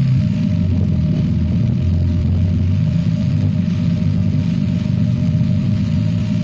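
Electric hammering drill boring into solid rock, running steadily under load with a rapid hammering.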